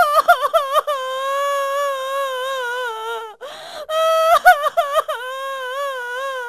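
A woman wailing in long, high, wavering cries of grief, broken once by a short sobbing breath about three and a half seconds in.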